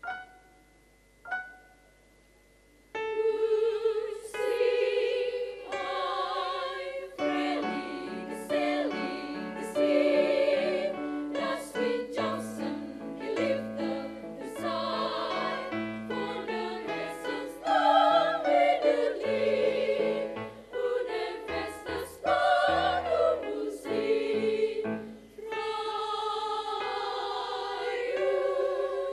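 A few sparse piano notes, then a choir of young women comes in about three seconds in, singing in several parts with piano accompaniment.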